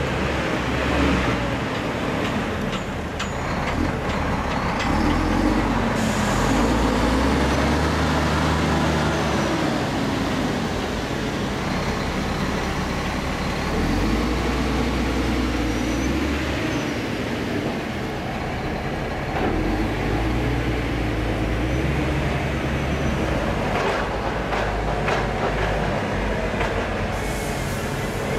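Liebherr all-terrain mobile cranes driving slowly past one after another, their big diesel engines running with a deep note that steps up and down as they pull through.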